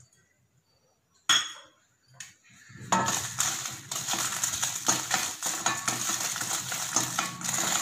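A spoon stirring whole dried red chillies in a dry stainless steel pan: after a single clink about a second in, continuous rattling and scraping starts about three seconds in as the chillies are turned over and dry-roasted without oil.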